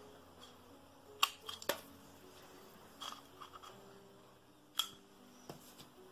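Sharp metal clicks and taps from a Comandante C40 hand coffee grinder being taken apart, its steel drive shaft drawn out of the wood-clad body: two loud clicks about a second in, a small cluster around three seconds, and another near five seconds, over faint background music.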